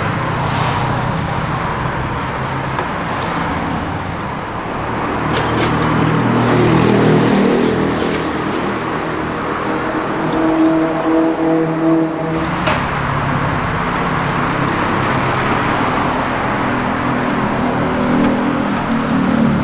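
Steady road traffic, with the engines of passing vehicles rising and falling and one engine standing out about ten to twelve seconds in. A few light knocks are heard now and then.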